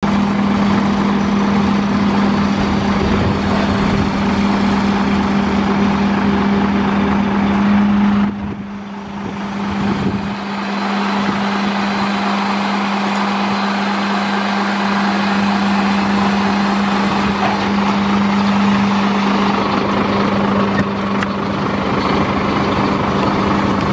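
Heavy diesel dump truck running with a steady, even drone while its tipper body is lowered; the sound dips for about two seconds around eight seconds in, then carries on as before.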